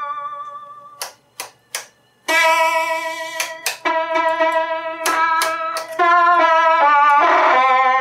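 1979 CRB Diamond Mascot electronic organ playing a few sustained notes in turn through its own amplifier and speaker, with a slight waver in the tone and several sharp clicks between notes. The organ is sounding with its preamp output jumpered straight to the TDA2030 power amplifier, bypassing a stage that loses the signal; the owner suspects the amplifier is now getting the wrong signal.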